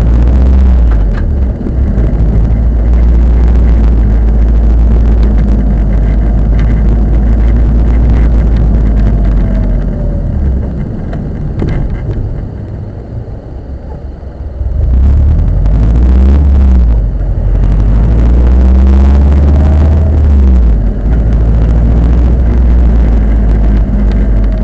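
A car on the move, with a heavy low rumble and engine notes rising and falling. It eases off for a few seconds about halfway through, then picks up again.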